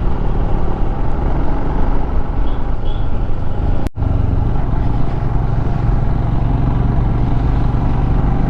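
Royal Enfield Himalayan's 411 cc single-cylinder engine running steadily at riding speed, with wind rush over a helmet-mounted action camera's microphone. The sound breaks off for an instant about four seconds in.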